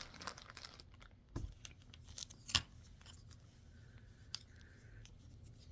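Unboxing packaging and items being handled: a few sharp clicks and knocks, the loudest about two and a half seconds in, with light rustling between.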